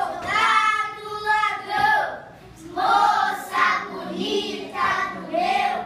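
A group of young children singing together in short phrases, with a brief pause about two seconds in.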